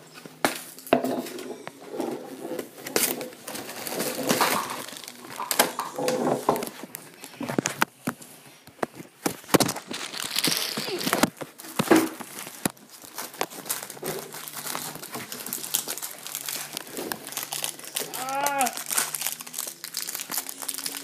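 Crinkling and crackling of a Ritz cracker box and its wrapper being handled and opened, with many sharp, irregular clicks.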